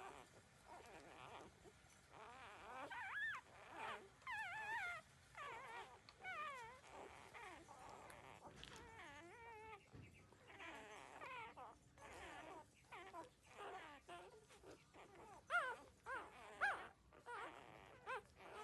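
Newborn puppies whimpering and squealing: many short, high, wavering cries one after another, with a few sharper, louder squeaks about three-quarters of the way through.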